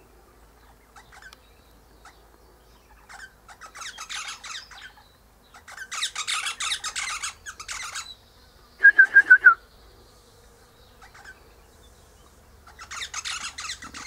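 Eastern rosella chattering: bursts of rapid, scratchy high notes. Between them, about two-thirds of the way in, comes a louder run of about six quick, clear notes.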